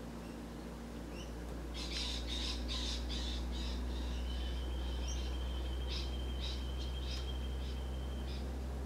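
A bird squawking in a run of short raspy calls, about two a second, over a steady low hum.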